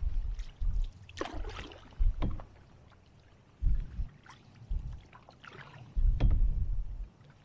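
Canoe paddling with a single-blade paddle: several strokes with the blade splashing and swirling in the water, and dull low thumps every second or two.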